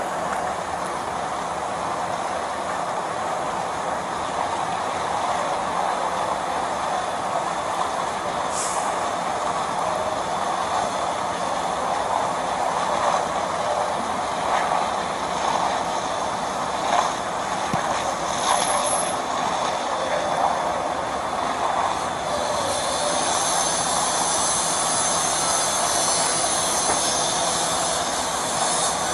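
Large fire burning: a steady rushing roar with scattered cracks and pops, and a higher hiss that joins about two-thirds of the way through.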